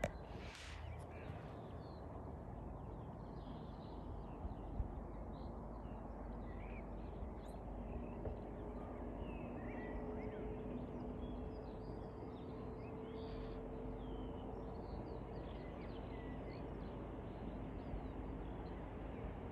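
Small birds chirping on and off over a low, steady outdoor background rumble, with a brief knock right at the start. A faint steady hum comes in about eight seconds in as a distant Southeastern electric train approaches.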